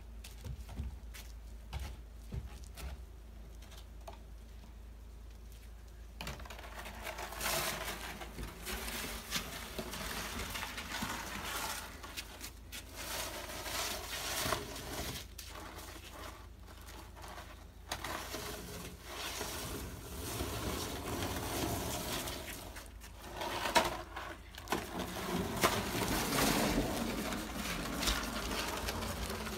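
Plastic snow shovel scraping and pushing slush across wet wooden deck boards, in uneven strokes that start about six seconds in after a few light clicks. There is a sharper knock near the end.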